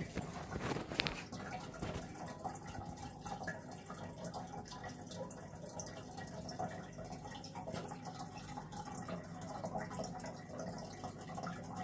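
Aquarium water trickling and splashing in a steady patter of small drips, with a couple of sharp knocks about a second in.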